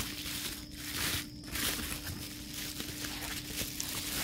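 Bubble wrap and plastic packaging crinkling and rustling in irregular swells as wrapped parts are handled.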